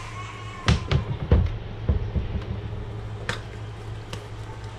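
A quick run of knocks and clatters about a second in, then two lighter knocks, as seasoning jars are taken out of an overhead kitchen cabinet. A steady low hum runs underneath.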